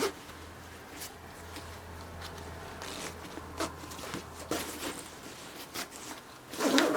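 Kata Grip 18DL padded holster camera bag being handled and opened: scattered fabric rustles and small clicks, with a zip being pulled, and a louder rustle near the end.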